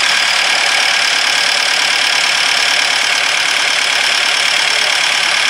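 Diesel engine with a rotary injection pump idling loudly and steadily just after starting, with a harsh, knocking note. The noise is annoying, and the mechanic takes it for a fault in how the injection pump is set.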